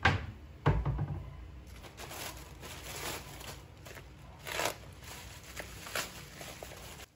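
Plastic courier mailer bag crinkling and rustling in bursts as it is handled and opened, with a dull thump a little under a second in.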